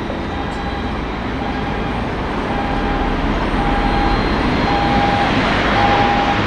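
Jet engine roar from a Boeing 787-8 with Rolls-Royce Trent 1000 engines during pushback, growing gradually louder. A single-tone electronic beep repeats about once a second over it.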